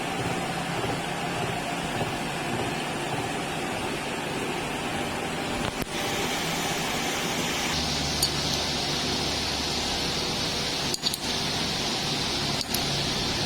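Horizontal milling machine running, a steady noisy mechanical sound with a faint hum. The sound shifts abruptly a couple of times, with a few short clicks.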